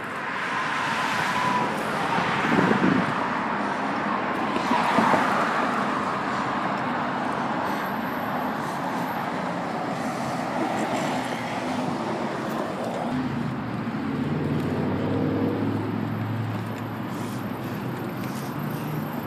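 Road traffic on a busy multi-lane street: a steady wash of engine and tyre noise, with cars passing that swell and fade in the first few seconds. From about two-thirds of the way through, a low engine hum comes in closer by.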